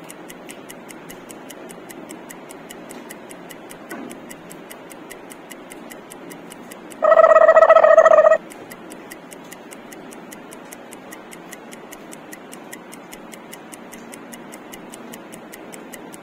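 Fast, even ticking of a countdown timer, with one loud steady beep lasting about a second and a half about seven seconds in.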